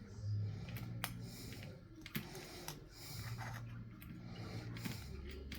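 Light clicks and taps at irregular intervals over a low hum that comes and goes.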